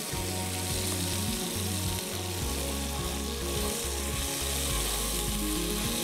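Fish pieces shallow-frying in oil in a pan, a steady sizzle.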